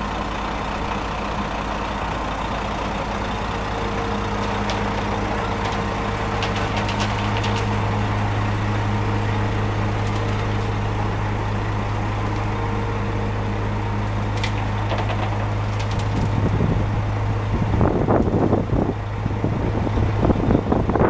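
Cement mixer truck's diesel engine idling with a steady low hum. From about three-quarters of the way through, gusts of wind buffet the microphone.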